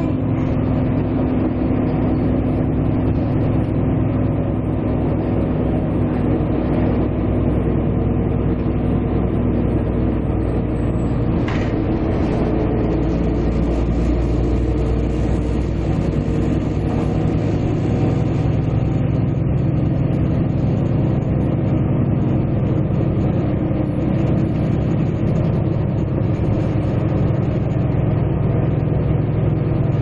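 Steady engine drone and running noise of a moving road vehicle, with a single short knock a little over ten seconds in.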